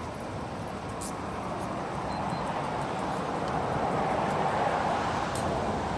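Street traffic noise: a vehicle goes by, its sound swelling in the middle and easing off near the end.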